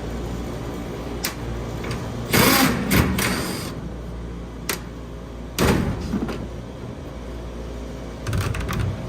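Steady low mechanical hum, broken by a few sharp metal knocks and scrapes as the chiller's condenser fan motor and blade are handled.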